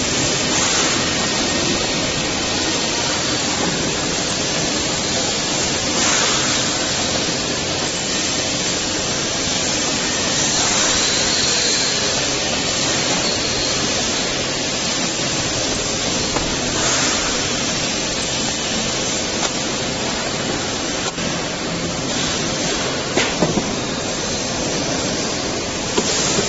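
Steady noise of a wheel sorter running, its many small roller wheels spinning, with a faint steady hum underneath and a few brief brighter rustles.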